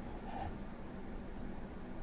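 Steady hiss and low hum of room tone, with a faint brief handling noise about half a second in from hands working the wiring inside a clear acrylic frame.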